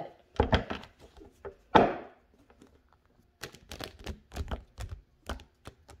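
A series of sharp taps and knocks: a few in the first two seconds, then a quicker, irregular run in the second half.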